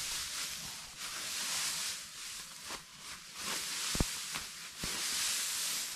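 Dry rustling of leaves or straw in irregular swells, with one sharp knock about four seconds in and a couple of fainter clicks.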